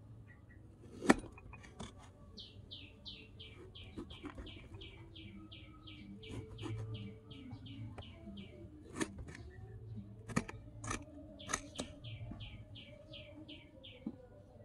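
Small knife cutting a green ball eggplant into wedges on a wooden board, with sharp knocks of the blade on the wood, the loudest about a second in. Behind it a bird calls in two long runs of quick, falling chirps, about four a second.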